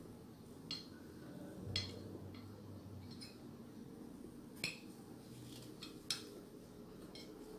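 A metal spoon clinking and scraping against a bowl while eating, in several faint, short clinks spaced about a second apart.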